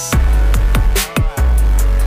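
Loud electronic background music with a heavy bass and a steady drum beat.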